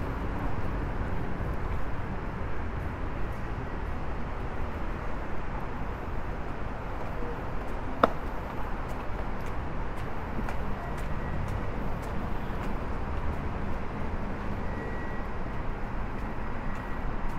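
Steady hum of city road traffic, with faint footsteps climbing stairs and a single sharp click about eight seconds in.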